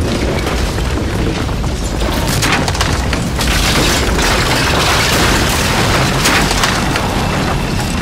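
Controlled demolition of a building: a long, rumbling blast with crackling debris as the building collapses.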